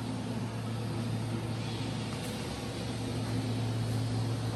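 A steady low machine hum with an even hiss over it, holding level throughout.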